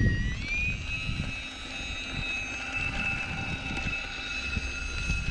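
Electric ducted fan of a small RC jet whining as the jet taxis. The pitch rises during the first second as the throttle comes up, then holds steady.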